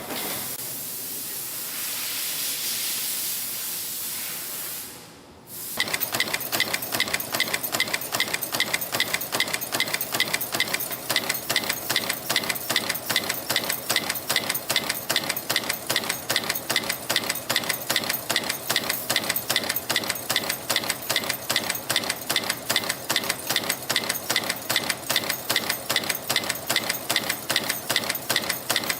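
A steady hiss for about five seconds. Then a CNC wire-forming and stamping machine starts cycling, making 5.3 mm wire safety pins with an even, rapid clatter of press strokes at about two and a half a second, its rated 150 pieces a minute.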